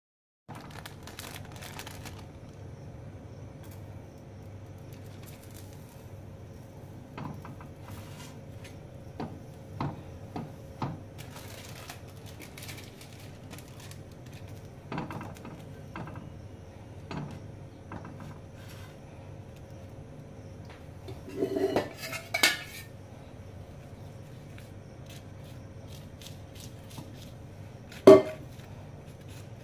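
Metal spoon clinking and scraping on a flat griddle (tawa), with scattered light knocks as bread slices are handled. A short run of clatter about three-quarters of the way through and a sharp clink near the end, over a steady low hum.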